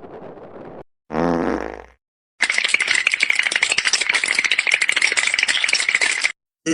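Meme sound-effect clips played back to back: a short, loud blat with a sliding pitch about a second in, then, after a brief gap, about four seconds of dense crackling rattle that stops suddenly.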